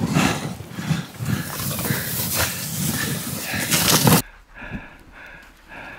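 Dog sled running over snow: the runners scrape and hiss over the snow, with hard rhythmic breathing. About four seconds in it cuts off sharply to a quieter stretch of steady rhythmic panting.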